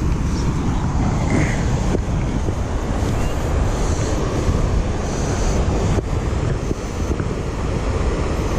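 Steady rushing of water pouring over a spillway, mixed with wind buffeting the microphone.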